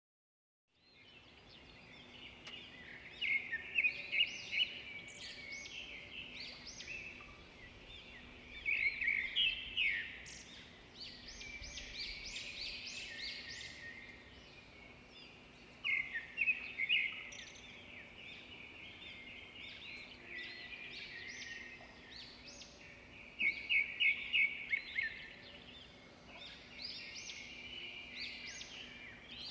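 Songbirds chirping and trilling, with louder flurries of rapid chirps every six or seven seconds over a steady background of softer chirps.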